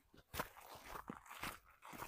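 Footsteps of hikers walking on a moorland trail: a steady run of short steps, about two or three a second, with rustling between them.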